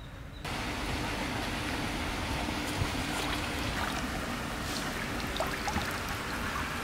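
Shallow stream of water running steadily, cutting in suddenly about half a second in, with a few light splashes in the second half.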